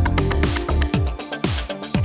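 Electronic dance music with a steady four-to-the-floor kick drum, synth chords and hi-hats.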